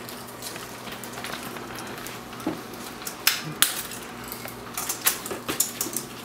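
Light clicks and knocks from handling a piano accordion and unsnapping its bellows straps, with two sharp clicks a little past three seconds in and a cluster of clicks near the end. No notes are played.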